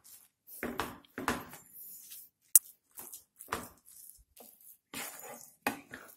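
Wooden spatula stirring and scraping a wet mix of rice and mashed dal around a non-stick pan in irregular strokes, with one sharp tap about two and a half seconds in.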